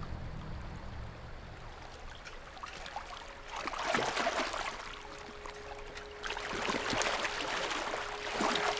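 River water rippling and splashing around swimming and diving common goldeneye ducks, rising in two rougher stretches, about three and a half seconds in and again from about six seconds on.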